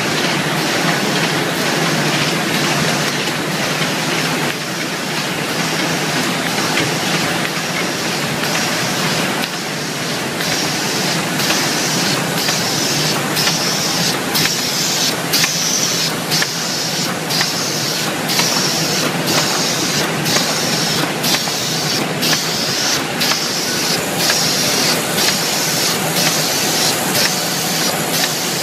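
Automatic file folder making machine running: a steady loud mechanical clatter of rollers and feed, joined from about a third of the way in by a regular stroke a little more than once a second, the machine's working cycle.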